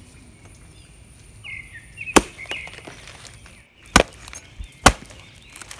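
A knife chopping into the tough rind of an unripe jackfruit: three sharp chops, about two, four and five seconds in. The fruit is hard to cut because it is unripe.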